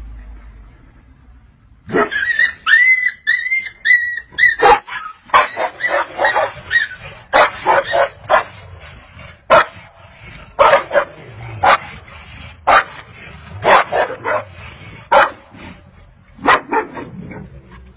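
Dogs barking: a run of short, high, arching yelps starts about two seconds in, followed by repeated sharp barks, singly and in quick clusters.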